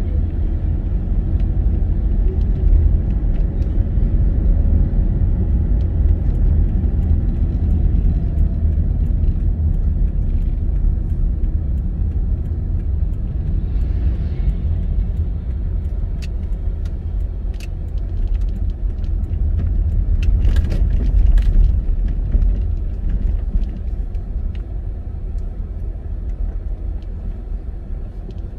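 Car driving on a paved road, heard from inside the cabin: a steady low rumble of tyres and engine, with a few short clicks about two-thirds of the way through. The rumble eases off near the end as the car slows.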